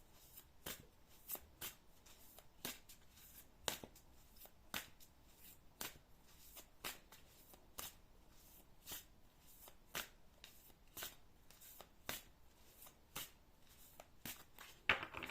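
A deck of oracle cards being shuffled by hand: faint, even card slaps about twice a second, a little louder near the end.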